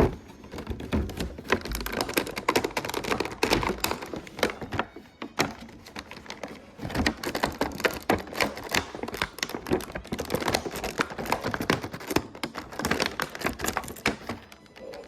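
Plastic and cardboard toy packaging being handled and opened: a dense, fast run of clicks and crackles that stops near the end.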